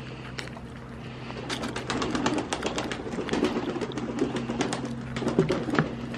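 A goat biting into and crunching a piece of fruit held out by hand: a quick, irregular run of crisp crunches starting about a second and a half in, over a low steady hum.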